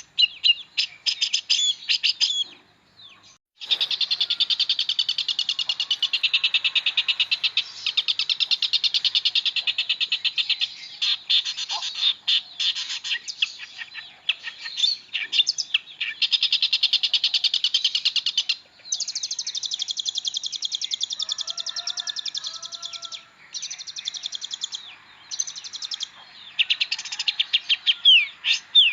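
Long-tailed shrike (pentet) singing a fast, chattering song of rapid trills, clicks and whistled notes in long unbroken runs, with a short pause about three seconds in.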